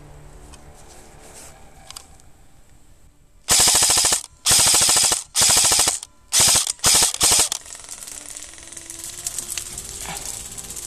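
Close airsoft electric rifle firing six quick full-auto bursts, a rapid mechanical clatter of gearbox cycling and shots, from about three and a half seconds in until about seven and a half seconds in.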